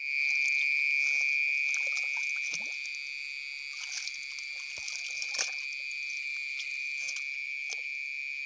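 Steady high-pitched chorus of frogs calling, with light splashes and drips as hands pick golden apple snails out of shallow, weedy water.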